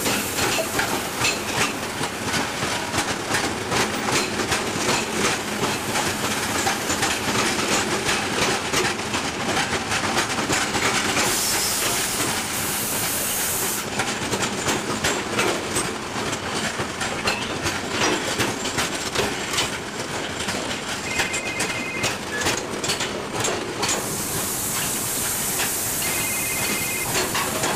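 Container wagons of a binliner freight train rolling past, their wheels clicking steadily over the rail joints.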